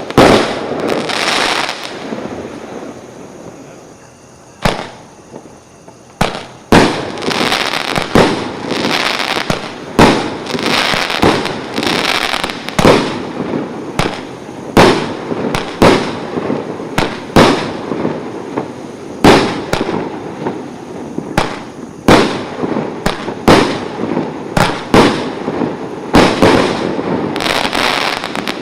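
Multi-shot consumer fireworks cake firing shot after shot, about one a second, each sharp report followed by the crackle of the burst. There is a lull of a couple of seconds about four seconds in, then the shots resume steadily.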